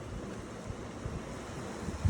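Steady rush of ocean surf with wind rumbling on the microphone in uneven gusts.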